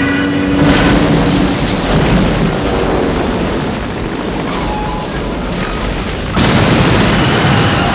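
Bomb explosions in an air raid: a blast about half a second in, then rumbling and crashing debris, and a second blast a little over six seconds in. The drone of propeller aircraft engines dies away under the first blast.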